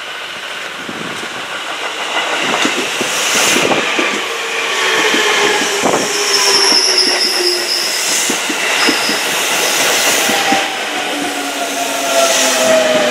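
JR 205 series 5000-subseries electric train passing close as it slows into a station: wheels clicking over rail joints and the traction motors' whine falling steadily in pitch as it brakes, growing louder as the cars go by. A brief high squeal comes about six to seven seconds in.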